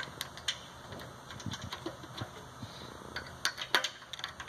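Scattered light metallic clicks and ticks as the bearing cap and its bolts are fitted and tightened onto a VSC pump's bearing housing, with two sharper clicks a little past three and a half seconds in.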